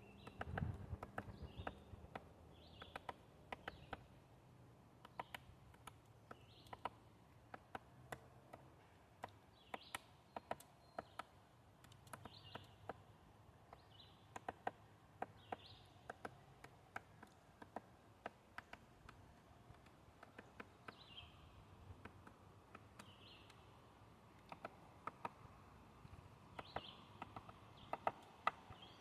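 Woodpecker pecking at wood: faint, irregular single taps, with short high bird chirps now and then.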